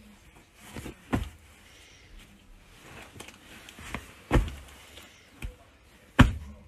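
A hand slapping a duvet-covered bed in several dull thumps at uneven intervals, the loudest one near the end.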